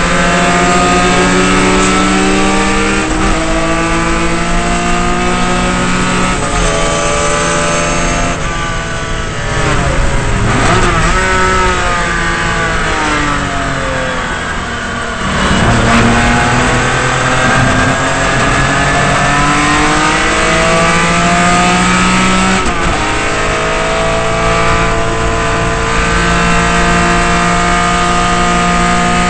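1972 Datsun 240Z race car's straight-six engine heard from inside the cabin at racing speed: it climbs in pitch under full throttle with an upshift about three seconds in, drops back with falling pitch and short throttle blips while braking and downshifting for a corner in the middle, then pulls hard again, climbing through another upshift near the end.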